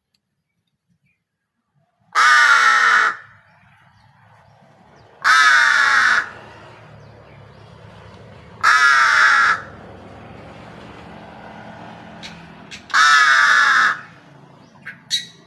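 Crow cawing four times, each loud call a little under a second long and falling in pitch, spaced a few seconds apart, with a faint low hum between calls.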